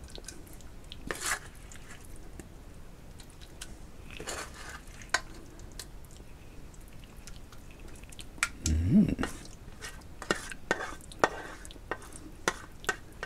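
A metal spoon scraping and clicking against a stainless frying pan as sauce-coated pork is spooned onto a plate, with soft wet dabs of food. A brief low rising sound about nine seconds in is the loudest moment.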